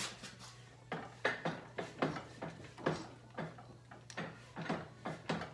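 A run of light, irregular clicks, about three a second, as the Harley's rear wheel is turned by hand to rotate the engine and bring the intake lifter down for push rod adjustment. A steady low hum runs underneath.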